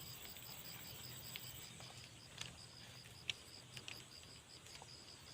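Faint insect chirping, an even high-pitched pulse about four to five times a second, with a few faint clicks.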